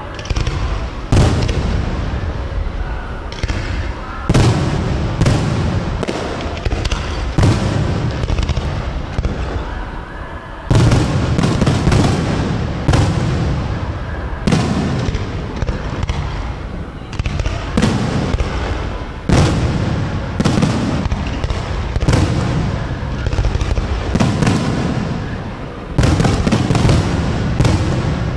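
Aerial firework shells bursting overhead in a steady barrage: a loud boom every one to three seconds, each trailing off in a long rolling rumble and crackle.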